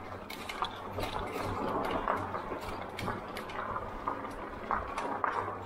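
Lectric XP e-bike's fat tyres crunching over a rough gravel track, with a dense, irregular crackle of small clicks and rattles.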